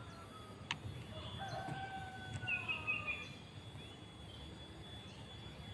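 A rooster crowing, one drawn-out call peaking about halfway through, preceded by a single sharp click about a second in.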